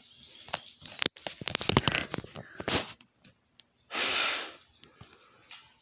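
A dog chewing and mouthing a plush toy, with a run of small clicks and crunches, then a short, noisy huff of breath about four seconds in.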